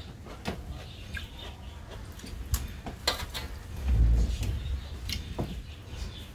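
Eating sounds: chewing and lip smacks, with fingers working rice on a metal plate, heard as scattered short clicks. A low thump about four seconds in is the loudest sound.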